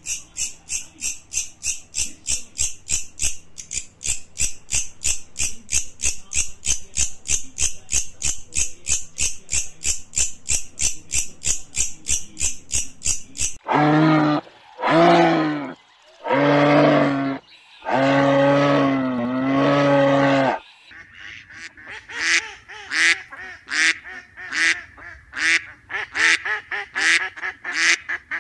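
A bush cricket stridulating in a fast, even series of high chirps, about four a second, for the first half. Then a camel calls four times, the last two calls longer. Then muscovy ducklings peep rapidly, about two peeps a second.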